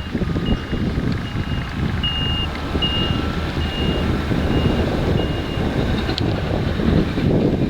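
A reversing alarm beeping steadily, a little over once a second, over the loud, steady rumble of heavy farm machinery; the beeping stops about three-quarters of the way through.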